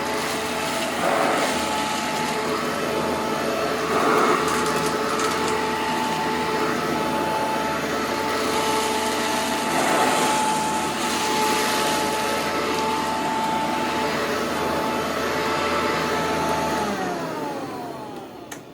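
Eureka commercial upright vacuum cleaner running steadily with a high motor whine. It is switched off near the end, and the whine falls in pitch and fades as the motor spins down.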